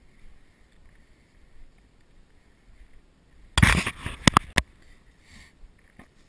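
Action camera being jostled: a brief rough rustle lasting about a second, with three sharp knocks at its end, over faint outdoor background.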